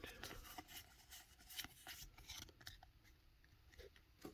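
Faint rustling and scraping of trading cards being handled and slid against one another, a string of soft scratches and ticks.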